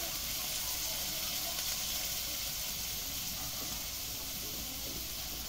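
Beetle grubs frying in oil in a cast-iron wok, a steady sizzle.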